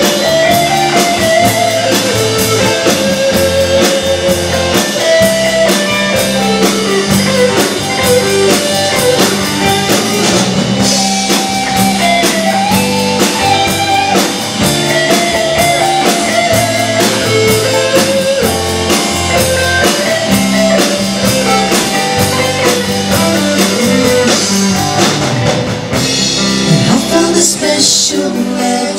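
Live band playing electric guitar rock music: two electric guitars over a drum kit keeping a steady beat.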